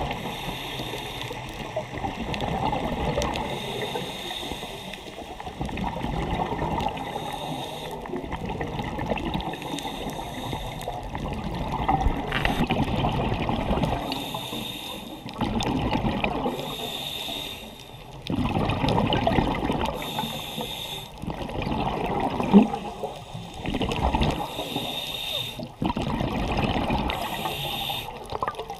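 Water sloshing and lapping around a camera held half-submerged at the surface, swelling and fading unevenly every second or two.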